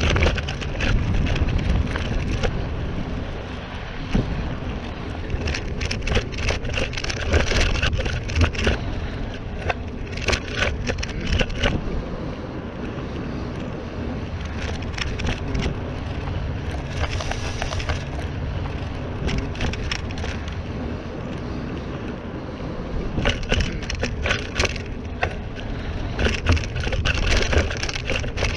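Mountain bike rolling along a dirt trail, with wind buffeting the microphone as a steady low rumble. Tyres crunch and the bike rattles over rough ground in bursts of crackling, heaviest about a quarter of the way in and again near the end.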